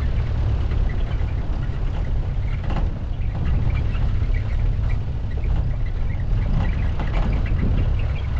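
Car driving, a steady low rumble of road and engine noise, with a few faint knocks and short high chirps scattered through it.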